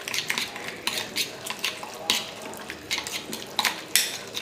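A hand mixing boneless chicken strips with egg white and cornflour in a glass bowl: irregular wet squelches and clicks.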